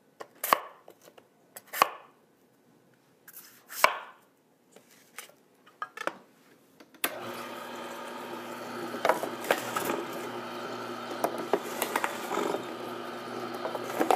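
Knife chopping green apples into chunks on a cutting board, several separate sharp strikes. About seven seconds in, a Tribest Greenstar Elite twin-gear masticating juicer starts running with a steady hum and the small crackles of produce being crushed.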